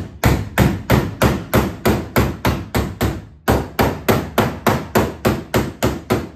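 Panel-beating hammer striking the steel sheet metal of a car's rear wheel arch, a steady run of sharp metallic blows about three a second with a brief pause a little past halfway. The blows are knocking down high spots in the panel.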